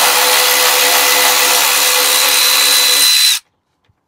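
Cordless electric ratchet running steadily as it spins out a skid-plate bolt, then stopping suddenly about three and a half seconds in.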